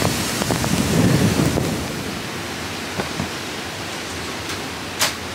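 Hurricane Ian's wind gusting and buffeting the microphone, with rain. After about two seconds it gives way to a quieter steady hiss with a few light clicks and one sharp click near the end.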